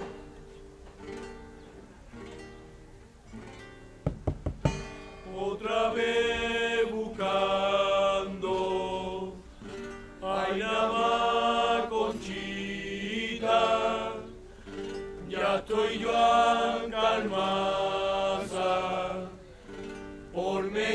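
A carnival street group singing to acoustic guitar accompaniment: a few sharp strikes about four seconds in, then sung phrases with short pauses between them.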